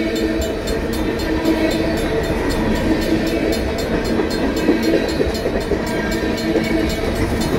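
Freight train of tank cars and hoppers rolling past at a crossing, a steady rumble and rattle of wheels on rail. Over it the crossing bells ring without pause in quick, evenly spaced strokes.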